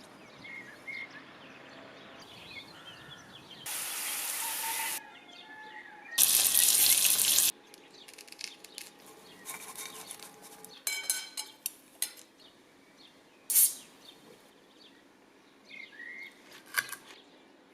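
A kitchen tap running in two short spells, the second louder, among small clicks and knocks of kitchen handling. Birds chirp briefly near the start and again near the end.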